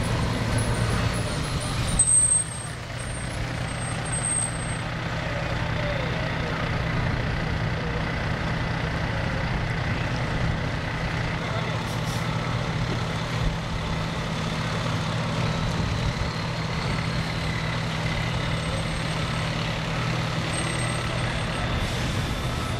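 Diesel engines of fire trucks running as they roll slowly past, a steady low drone. About two seconds in there is a sharp hiss of air brakes.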